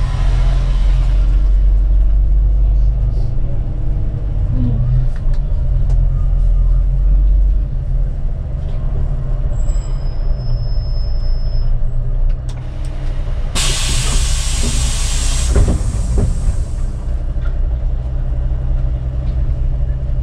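City bus heard from the driver's seat while driving: a steady low engine drone and road rumble. About two-thirds of the way through, a loud hiss of released compressed air from the bus's pneumatics lasts about three seconds.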